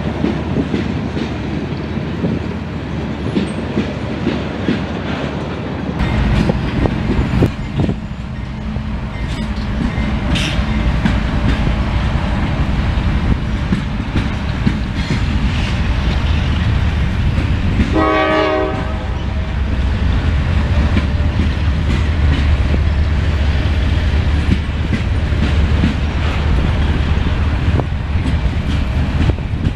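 Freight train rolling by: at first a steady rumble of hopper cars moving off, then from about six seconds in CSX diesel locomotives pass close with a heavy low engine rumble, followed by hopper cars clattering over the rail joints. A brief pitched tone sounds a little past halfway.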